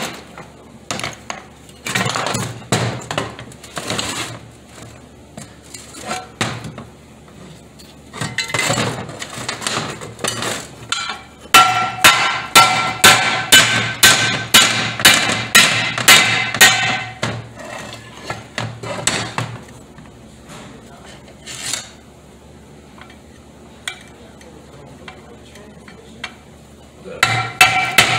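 Hammer blows on parts of a 4T40E automatic transmission, metal on metal. A run of about fifteen sharp, ringing strikes, some three a second, comes midway, and more strikes come near the end. Scattered clanks of metal parts being handled come between them.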